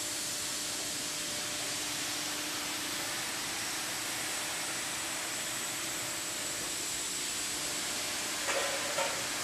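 Steady machine-shop hiss with a faint, even hum underneath, and no distinct press stroke or impact. A brief voice comes in near the end.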